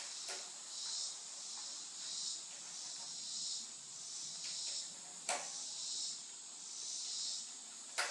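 A few sharp clicks as parts of a small pressure-washer engine are handled. The loudest comes about five seconds in and another near the end, over a high hiss that swells and fades about once a second.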